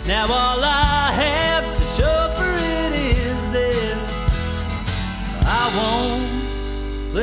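Instrumental break in a band recording: drums keep the beat while a pedal steel guitar plays a lead of gliding notes that slide up into pitch and settle, over held chords.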